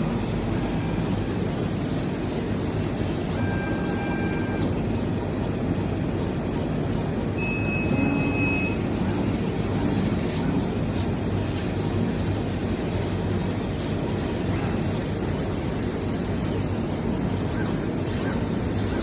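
Steady rumble and hum of factory machinery, with two short steady beeps, one about four seconds in and one about eight seconds in.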